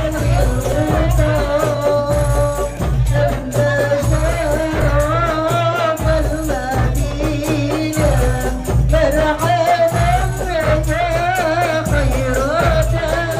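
Music: a voice singing a wavering melody over a steady, regular drum beat and jingling tambourine.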